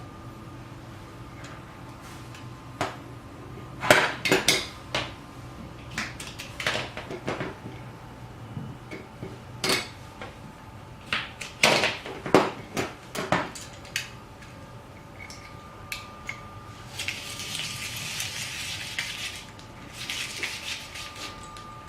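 Parts of a rotary cheese grater clattering and clicking as they are handled: a run of sharp knocks and clacks. Near the end come two spells of a steady hiss, about two seconds and one second long.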